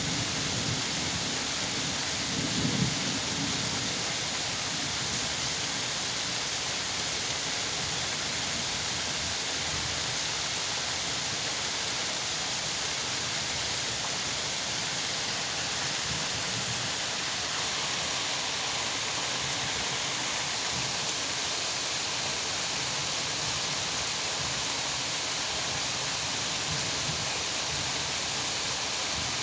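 Steady heavy rain, with low rumbling in the first few seconds.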